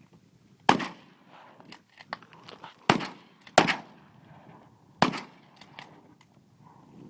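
Four sharp shots from a BB gun: one about a second in, two close together near the middle and one about five seconds in, with fainter ticks between them.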